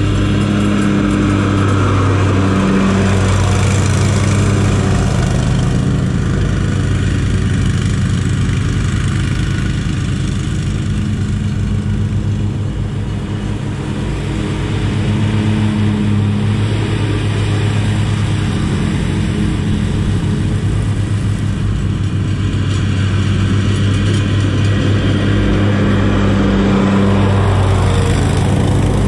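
Zero-turn riding lawn mower running steadily while mowing. It dips slightly in level as it moves off across the lawn, then grows louder as it passes close by near the end.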